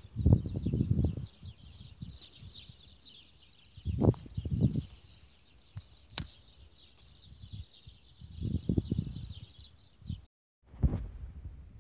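A steady, high-pitched chirring chorus of outdoor wildlife that cuts out briefly near the end. Low rustling bursts on the phone microphone come about a second in, about four seconds in and near nine seconds.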